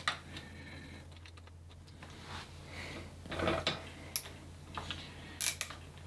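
Light metallic clicks and rustling as a 5 mm hex wrench is fitted onto the stanchion bolts at the bottom of a RockShox Bluto fork's lower legs. A few separate sharp clicks, not a steady ratchet rhythm.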